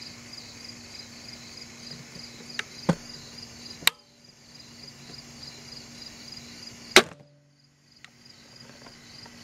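Horton Summit 150 crossbow shooting a bolt: one loud, sharp snap of the shot about seven seconds in, with a softer snap near four seconds and a few faint clicks before it. Crickets chirp steadily throughout.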